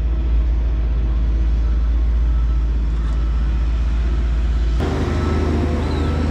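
Motor vehicle running with steady engine and road rumble, changing abruptly in character about three-quarters of the way through.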